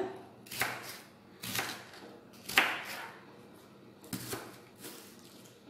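Kitchen knife slicing through a whole onion and knocking on a plastic cutting board: about five separate cuts, roughly a second apart, the loudest near the middle.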